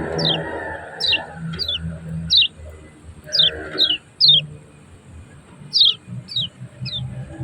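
Kecial kuning (a white-eye of Lombok) giving its sharp 'ciak ciak' call: about ten short, high notes, each sliding downward, roughly two a second with a brief pause in the middle. A lower background noise sits beneath, strongest in the first second.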